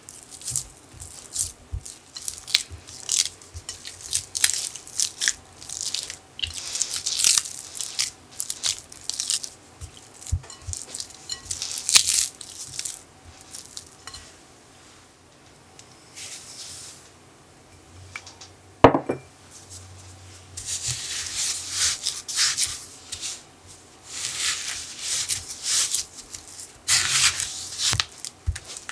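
Spatula mashing and stirring softened cream cheese against a glass bowl: irregular wet squishing and scraping strokes, with a single sharp knock about two-thirds of the way in.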